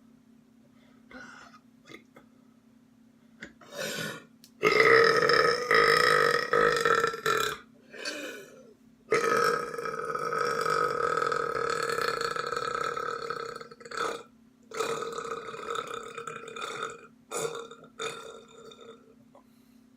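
A person burping: a long, loud belch starting about five seconds in and lasting close to three seconds, then an even longer one of about five seconds. Shorter burps come before, between and after them.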